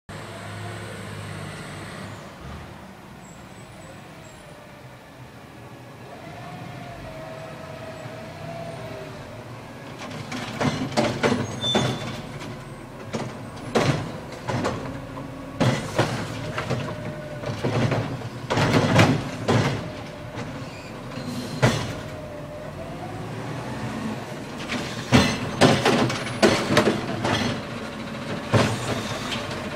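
Garbage truck diesel engine running as the truck pulls up, with a wavering whine. From about ten seconds in, repeated clanks and bangs come over the engine as trash carts are handled and emptied into the truck's front cart-tipping container.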